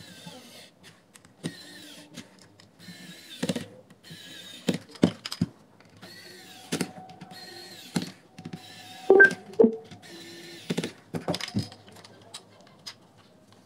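Pen-style cordless electric screwdriver whining in about eight short runs as it drives small screws, with plastic knocks and clicks from the speaker housing being handled between runs. The loudest knocks come near the middle.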